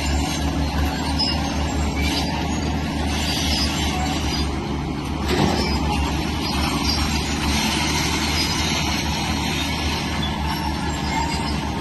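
Diesel engine of heavy earthmoving machinery, a crawler bulldozer or excavator, running steadily under load with a deep pulsing drone, over a rough mechanical clatter, with a brief knock about five seconds in.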